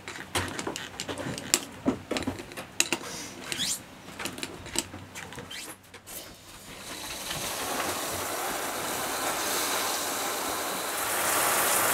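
Light metallic clicks and clanks of locking pliers knocking against brass shower valve fittings for about six seconds. Then a steady rush of water comes on and grows louder near the end: the newly fitted brass shower valves turned on and running.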